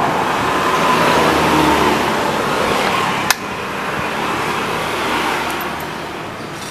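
Road traffic noise, a vehicle going by, swelling and then easing off, with one sharp click about three seconds in.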